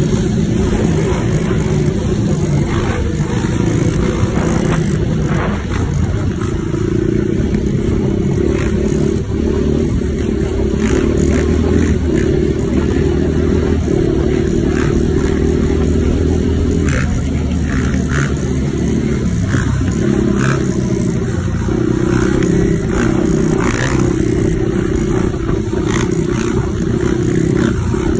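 Motorcycle and quad ATV engines running steadily under throttle at riding speed, heard from a vehicle riding alongside, with occasional short clicks and clatter.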